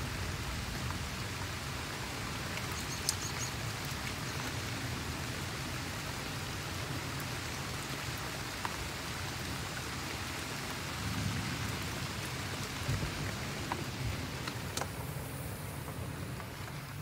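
Heavy rain falling steadily in a thunderstorm. A single sharp click is heard about three seconds in.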